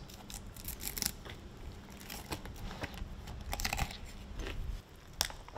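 Fillet knife slicing up the belly of a mutton snapper into the gills: irregular crunching and crackling as the blade cuts through flesh and bone, with a sharp click about five seconds in.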